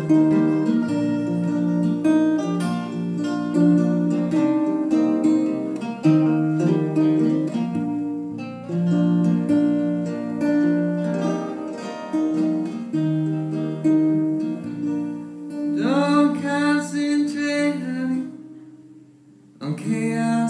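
Acoustic guitars strummed and picked together. A voice starts singing about three quarters of the way through, stops for about a second, then comes back in near the end.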